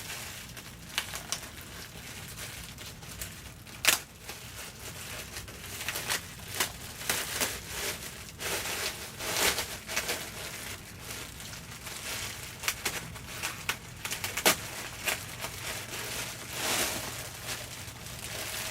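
Packaging crinkling and rustling as it is pulled off a costume helmet by hand, with a few sharp clicks, the loudest about 4 seconds in and near the three-quarter mark.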